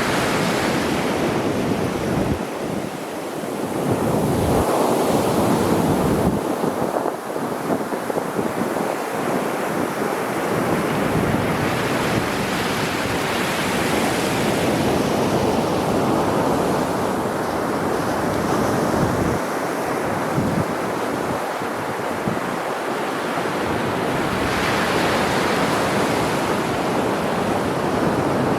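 Sea waves breaking and washing on the shore: a continuous surf wash that swells louder a few seconds in and again near the end, with wind gusting on the microphone.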